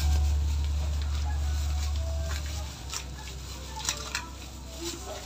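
Hands rustling and crinkling a plant's plastic wrapping and potting soil in a clay pot, with a few sharper crackles about four seconds in. A low rumble sounds under the first two and a half seconds, then drops away.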